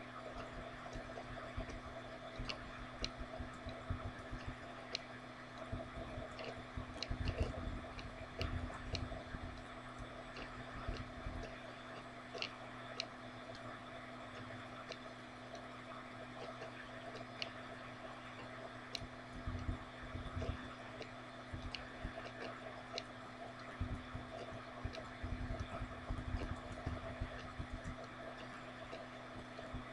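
Room tone: a steady low hum with scattered faint clicks and irregular low bumps.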